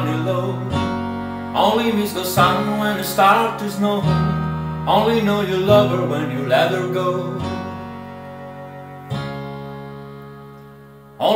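Instrumental accompaniment led by acoustic guitar: strummed and plucked chords that change about every second and a half. It slowly fades down, then comes back in loud at the very end.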